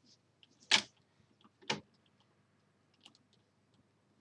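Computer keyboard keystrokes while a password is typed in: two sharp clicks about a second apart, followed by a few faint ticks.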